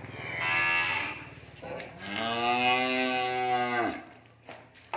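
Cattle mooing: a short moo about half a second in, then a longer moo of about two seconds that starts around the two-second mark.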